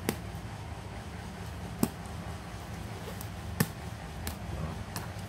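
Sharp clicks of a small metal tool against a laptop keyboard's metal backing plate: three loud ones evenly spaced a little under two seconds apart, then a couple of fainter ticks, over a steady low background noise.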